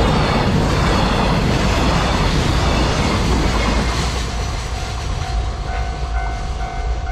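Freight train hauled by an EF210 electric locomotive passing at speed, its wagons rumbling and clattering over the rails. The rumble eases about four seconds in, and a steady high tone comes through above it.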